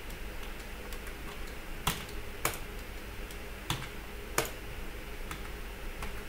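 Computer keyboard keys and mouse buttons clicking: a few separate sharp clicks, four of them louder, between about two and four and a half seconds in, over low steady background noise.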